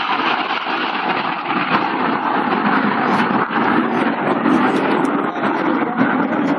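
Steady rushing jet noise from a BAE Hawk T1 display jet passing in the distance.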